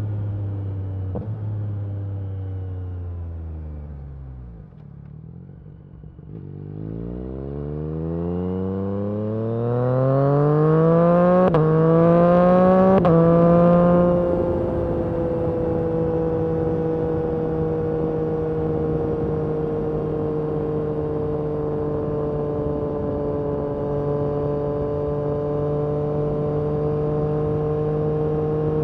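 2022 Yamaha MT-09 SP's inline three-cylinder engine through an Akrapovic carbon racing exhaust. The engine note falls away and quietens as the bike slows, then climbs hard under acceleration, dropping in pitch with two quick upshifts. It settles into a steady cruise.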